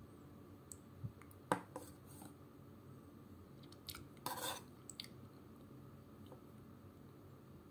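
Metal spoon clinking and scraping against an open tin can while scooping tuna flakes out of broth: a few sharp clicks, the loudest about a second and a half in, and a short scrape around four seconds.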